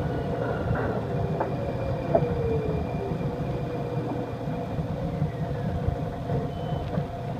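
Inside a light-rail car in motion: a steady low rumble of the wheels on the track with a motor whine sliding slowly down in pitch as the train slows, and a few short clicks along the way.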